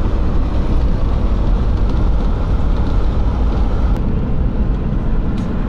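Steady rumble of a car driving on the open road, heard from inside the cabin: engine and tyre noise, strongest in the low end.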